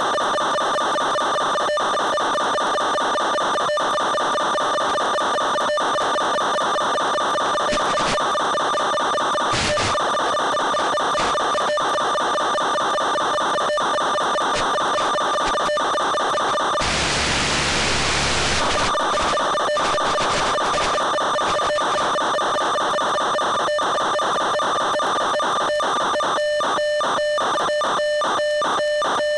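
Steady electric buzz of several stacked pitches from the FPV plane's onboard audio, the motor running at a constant current draw. About two-thirds of the way through, a two-second burst of static hiss breaks in, and near the end the buzz turns choppy and pulsing.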